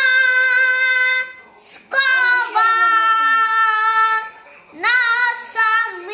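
A young boy singing loudly in three long held phrases, each on a steady high note, with short breaks for breath between them.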